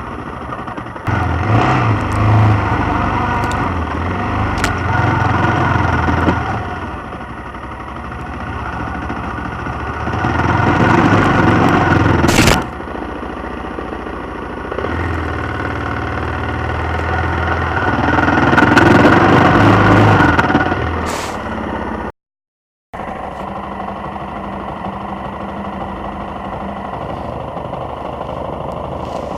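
Suzuki XF650 Freewind motorcycle's single-cylinder engine under off-road riding, revving up in three surges and easing off between them. The sound breaks off briefly about three quarters of the way through, then runs steadier.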